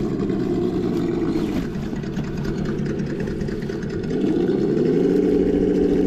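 Simulated engine sound from an RC crawler's Sense dual ESS sound kit: the engine note falls toward idle over the first two seconds, stays low and a little quieter, then rises about four seconds in and holds at a higher speed as the truck is driven on.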